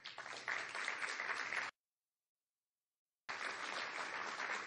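Audience applauding steadily, with about a second and a half of dead silence a little under two seconds in where the audio drops out, then the applause resumes.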